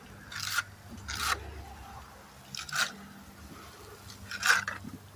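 Trowel scraping wet mortar against a concrete step corner in four short strokes, the last one the loudest.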